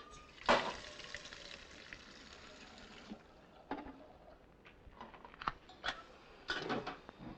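A burst of running or splashing water that fades out over about two seconds, then a few scattered knocks and clatters, in a small room.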